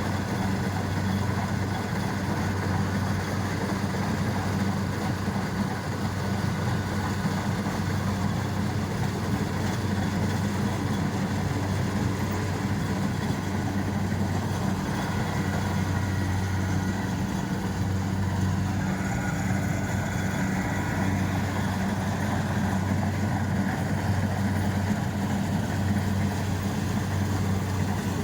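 Kubota combine rice harvester's diesel engine running steadily with a low, even drone.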